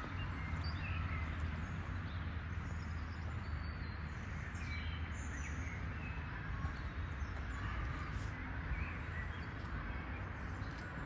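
Outdoor ambience: small birds chirping here and there in short, scattered calls over a steady low rumble.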